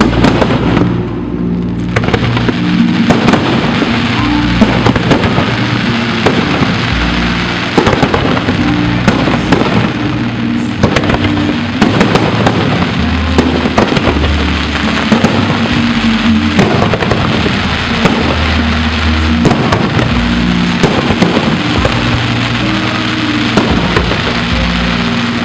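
Aerial fireworks going off in a dense barrage: many sharp bangs, several a second, over a continuous crackling hiss. Music with sustained low notes plays underneath.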